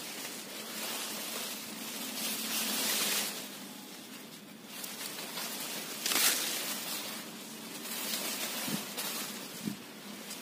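Soybean leaves and stems rustling against the phone and hand as they push through the crop, an uneven hiss that swells in surges about two to three seconds in and again about six seconds in.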